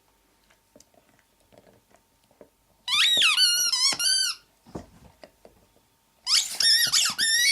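Rubber squeaky toy squeezed by a pet in two bursts of rapid, wavering squeaks: one about three seconds in and another near the end. Faint knocks sound in between.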